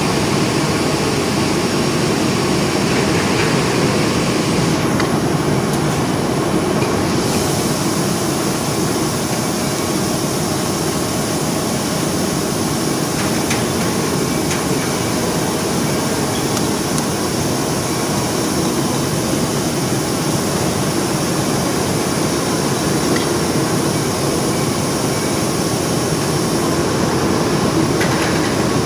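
Steady, loud din of running machinery on a steel-wire (PC strand) production floor, a continuous mechanical hum and rush that does not change.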